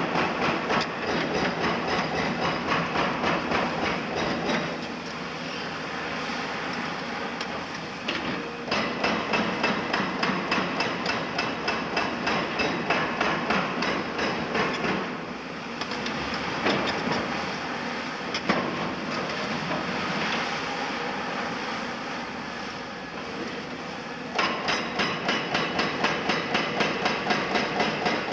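Hydraulic breaker pounding concrete with a fast, even hammering of about three blows a second, in runs broken by pauses of a few seconds. A diesel engine keeps running steadily through the pauses.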